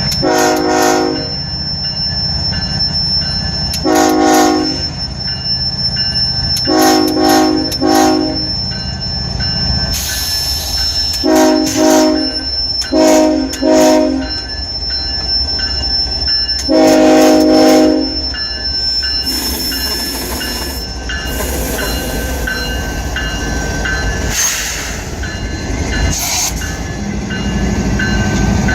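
Nathan K5HLL-R3 five-chime locomotive horn on a CSX freight, sounding a series of short and medium blasts with the last one held about a second; the horn is very plugged up, which gives its chord an off, choked sound. After the horn stops, the train rolls by with steady wheel noise and some wheel squeal.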